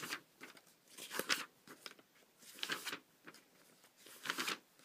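Paper rustling as sheets and small items are handled close to the microphone: four short crisp rustles about a second and a half apart.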